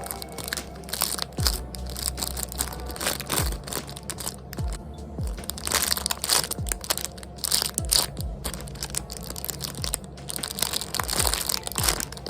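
Plastic packaging crinkling and crackling in irregular bursts as squishy toys are handled and squeezed, over lofi background music with a deep, regular kick drum.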